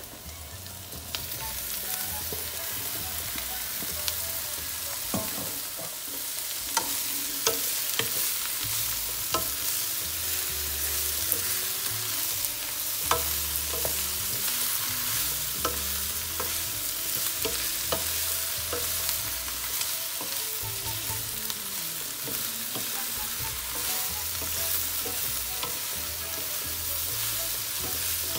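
Chopped tripe and liver sizzling in a nonstick wok with sautéed onion and garlic; the sizzle grows about a second in as the meat lands in the pan. A wooden spatula stirs it, with frequent sharp clicks and scrapes against the pan.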